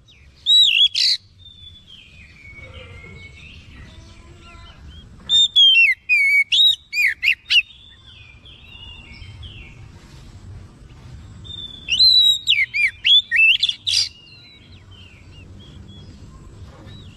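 Oriental magpie-robin singing in loud bursts of rich, swooping whistled phrases, three of them about five seconds apart. Softer, quieter warbling and chattering fill the gaps between bursts.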